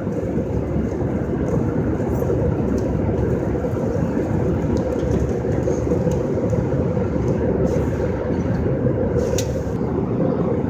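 Steady airliner cabin noise in flight: an even, unbroken rumble, with a few faint clicks over it.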